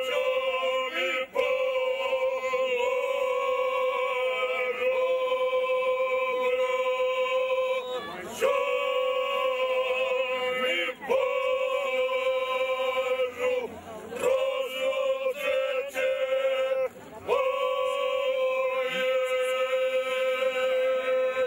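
Ojkača: five men singing together unaccompanied in the traditional Krajina style, holding long notes that are broken by short pauses for breath every few seconds.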